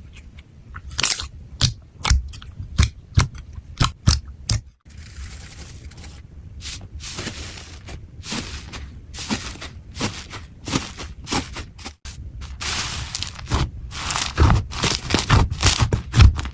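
Slime being handled: a run of sharp clicks and pops, then denser scraping and crackling, with sudden changes about five and twelve seconds in.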